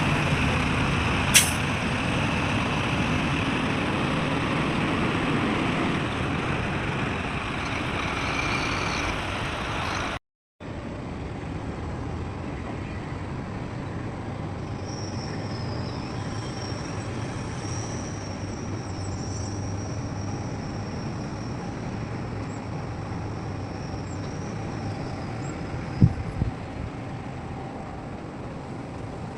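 Heavy diesel construction machinery running steadily: bulldozer and dump-truck engines at work. There is a sharp click about a second in and a thump near the end, and the sound changes abruptly after an edit cut partway through.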